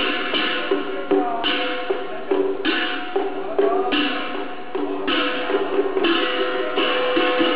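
Chinese Taoist ritual music accompanying the breaking-hell rite: sharp wood-block and percussion strikes under held and gliding melodic notes, with one long held note from about six seconds in.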